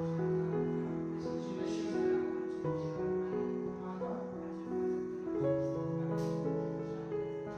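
Background piano music: slow, held notes with no break.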